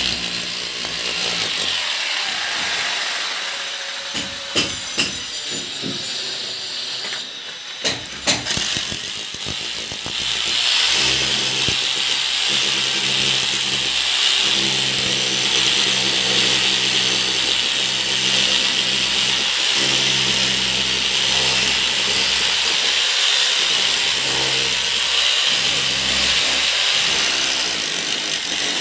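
Hand-held electric hammer tool with a flat chisel bit hammering into a red laterite brick wall, cutting a groove to bury electrical conduit. It runs in short stop-start bursts with a few sharp knocks during the first third, then runs steadily for the rest.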